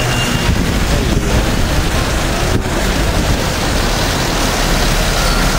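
Steady street traffic noise: cars passing close by in slow traffic, a continuous low rumble of engines and tyres.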